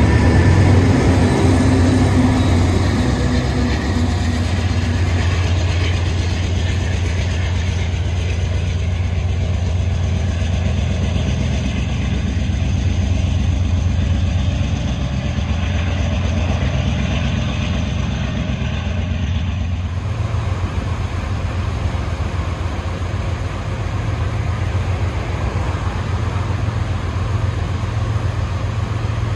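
Heavy freight train rolling by, a steady low rumble of wheels on rail. The sound shifts abruptly about two-thirds of the way through.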